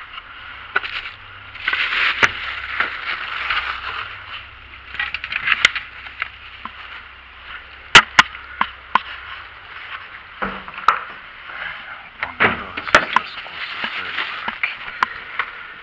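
Close rustling and scraping against a body-worn camera's microphone, broken by many sharp clicks and knocks, the loudest about eight seconds in, with dull thumps later on as car doors and seats are handled.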